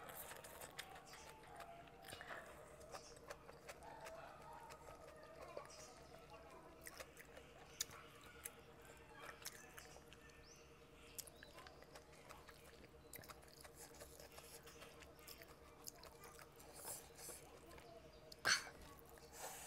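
Close-up chewing and wet mouth sounds of someone eating soft food by hand, boiled greens and smoked fish, with small smacks and clicks and a louder click about eighteen seconds in. A faint steady hum runs underneath.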